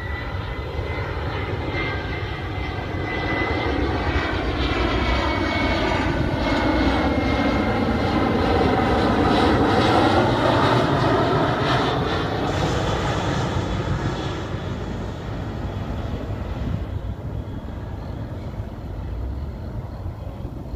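Boeing 737-300 airliner's CFM56 jet engines on landing approach, passing overhead: a rumble with a high whine that swells to its loudest about halfway through and then fades as the plane goes by.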